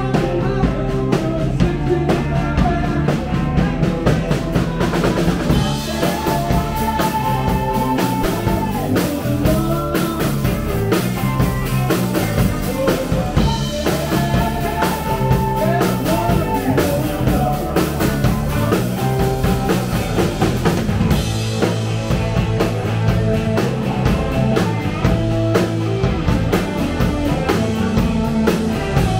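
A rock band playing live: two electric guitars, an electric bass and a drum kit driving a steady beat.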